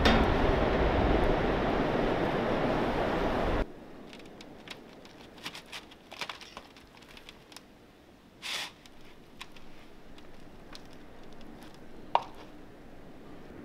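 Ocean surf and wind buffeting the microphone for the first few seconds, cut off abruptly. Then quiet, with the small clicks and scrapes of a knife and fork cutting cooked fish on a cedar plank: a short scrape about halfway through and a sharp tick near the end.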